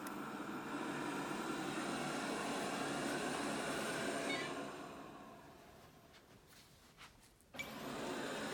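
Bagotte BG800 robot vacuum running, a steady whir of its suction motor and brushes. It fades away after about four and a half seconds and starts up again abruptly near the end.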